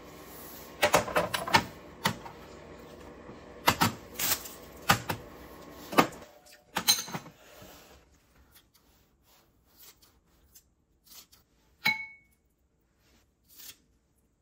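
Ceramic bowls and dishes knocked and set down on a serving tray: a quick run of sharp clacks and knocks in the first seven seconds, then a few lighter taps and one ringing clink of a bowl about twelve seconds in.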